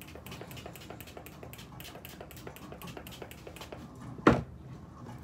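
Faint, irregular light clicking, with one short loud thud about four seconds in.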